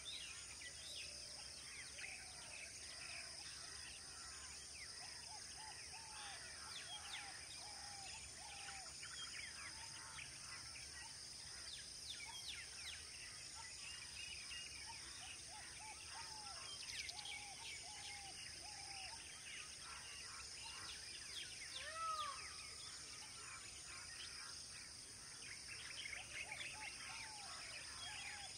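Wild birds calling in open country: many short high chirps and repeated short arched calls in runs of three or four, with one louder call about two-thirds of the way through, over a steady high hiss.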